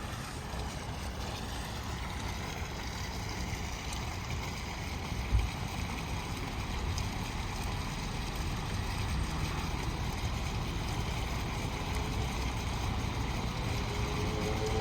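Low, steady rumble of a fire truck's diesel engine running, with wind on the microphone. A brief low thump about five seconds in, and faint rising tones near the end.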